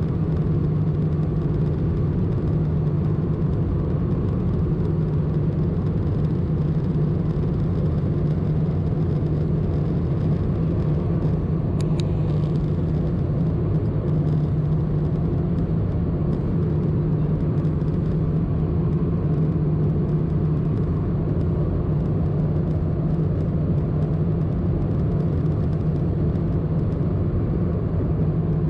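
Steady cabin noise in an Airbus A320-214 heard from a seat over the wing: the even hum of its CFM56 turbofan engines blended with rushing airflow as the airliner descends toward landing, a deep drone with fainter higher tones on top. A single brief click sounds about twelve seconds in.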